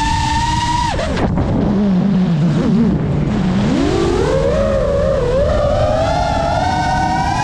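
FPV drone's brushless motors whining. The pitch drops sharply about a second in as the throttle comes off for a dive, stays low and wavering for a couple of seconds, then climbs steadily back up as power comes back on.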